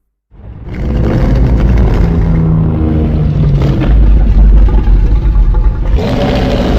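Monsterverse Godzilla sound effect: a loud, deep rumbling growl with pitched tones running through it. It starts after a moment of silence and gives way abruptly to another heavy rumble near the end.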